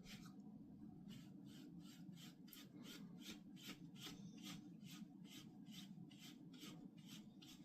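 Faint, quick rubbing strokes on a dog's fur, about three a second, as the coat is groomed.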